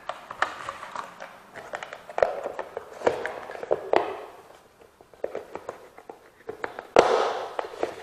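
Plastic food-storage container being handled while its lid is fitted down over a cord: a run of light plastic clicks and knocks, with a sharper snap near the end as the lid's latch flaps are pressed shut.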